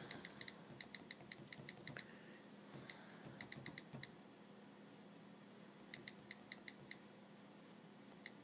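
Faint keyboard typing: quick runs of light key clicks, about five a second, broken by pauses.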